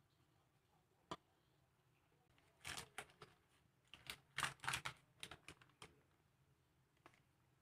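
Light clicks and taps from a spatula, steel mixing bowl and parchment-lined baking tin as brownie batter is scraped into the tin and the tin is handled. One click about a second in, then two irregular clusters of taps around three and five seconds, the second the louder.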